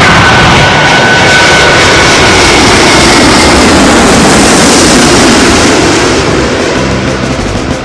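Jet airliner passing close by: loud jet engine noise with a faint high whine, swelling to a peak about four to five seconds in and fading near the end.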